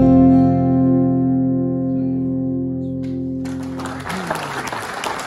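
Final chord of a solo acoustic guitar, struck just before and left ringing, slowly fading. About three and a half seconds in, audience applause starts. The chord stops soon after with a brief downward slide in pitch.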